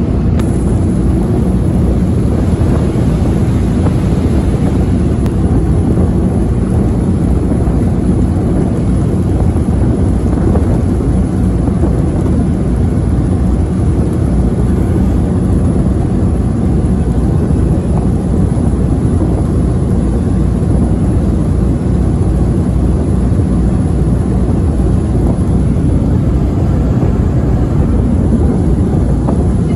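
CityCat catamaran ferry's engines running steadily under way, heard from the open rear deck as a loud, even low rumble.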